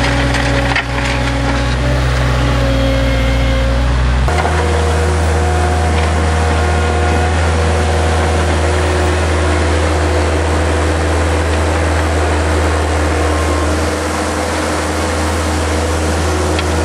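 Avant 750 compact loader's diesel engine running steadily under load while its toothed bucket scrapes and crunches through gravel and soil. The engine's tone changes abruptly about four seconds in.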